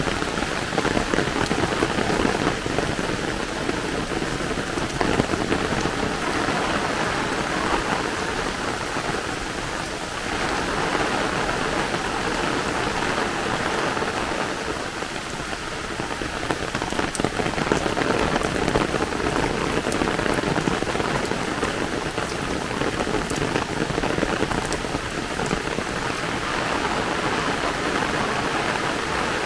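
Heavy rain, a downpour, falling steadily on a paved lane and the leaves around it, a dense, even patter.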